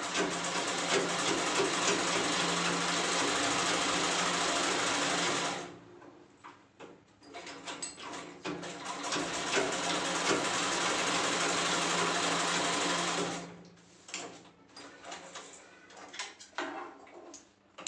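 Hand-cranked domestic sewing machine stitching through fabric, a steady run of about five seconds, then a pause with a few clicks, then a second run of about five seconds. The machine stops about thirteen seconds in, followed by clicks and rustling as the fabric is shifted under the presser foot.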